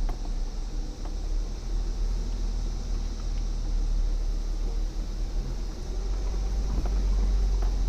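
Off-road vehicle engine running with a steady low rumble, with a few faint knocks.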